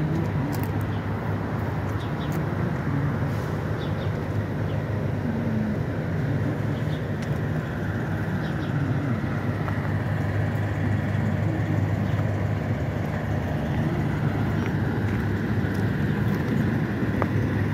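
Steady low mechanical drone, unchanging throughout.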